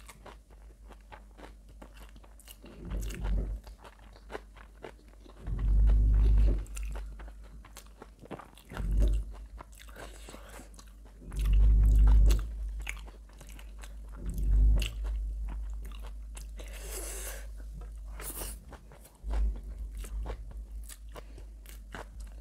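Close-miked eating: biting, crunching and chewing, with many small wet mouth clicks. About six dull low thumps come every few seconds and are the loudest sounds.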